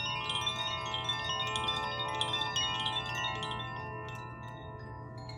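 The Water and Air chimes of a tuned elemental wind-chime set ringing together: many clear, overlapping bell-like tones, with quick fresh strikes for about the first three and a half seconds, then left ringing and slowly fading.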